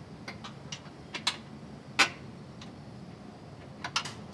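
Irregular sharp metallic clicks and clinks from parts and hand tools being fitted under a car body on an assembly line. The loudest click comes about two seconds in, over a low steady factory hum.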